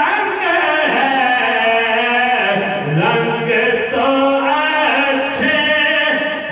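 Male voices singing a devotional naat (kalam) into handheld microphones over a PA, without instruments, in long held notes that slide from one pitch to the next.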